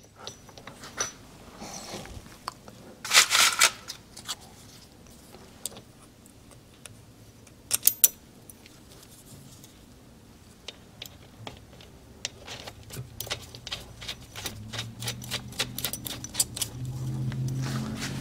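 Small metal parts clicking and clinking, with a couple of short scrapes, as a steel drive sprocket and its nut are handled and slid onto the output shaft of a Suzuki TS250 two-stroke engine case. A low hum builds in the last few seconds.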